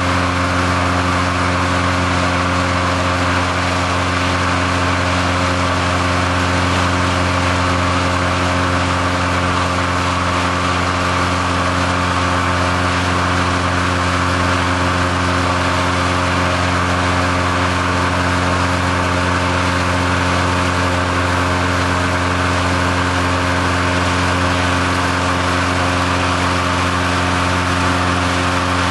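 Petrol-engined inflator fan running steadily at one constant speed, blowing air into a hot-air airship envelope during cold inflation.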